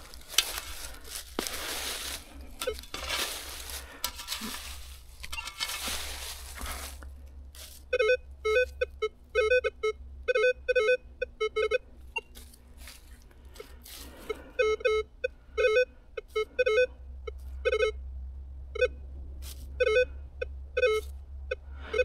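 Rustling and scraping in the leaf litter, then from about eight seconds in a metal detector gives many short, repeated beeps in pairs and small groups as the coil is swept back and forth over the hole. The signal, first clear, has turned unsteady; the detectorist takes it for a piece of iron and does not dig.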